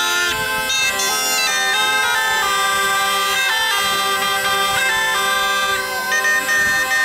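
Calabrian zampogna bagpipe and a ciaramella shawm playing a traditional tune together. Steady held drone notes sound under a melody that steps from note to note.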